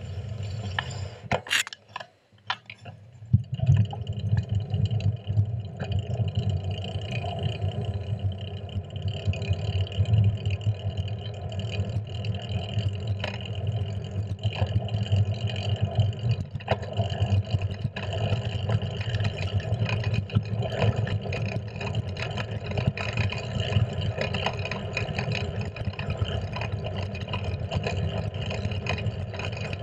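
Wind rumbling on a handlebar-mounted GoPro's microphone with road noise while riding a fixed-gear bicycle along a street. A few sharp clicks about a second and a half in are followed by a short lull, then the rumble comes back.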